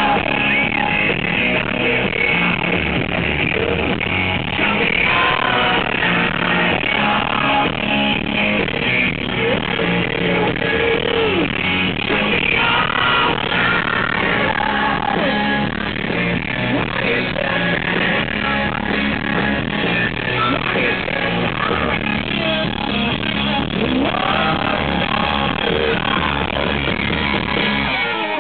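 Live pop-rock band playing, with a woman singing lead into a microphone.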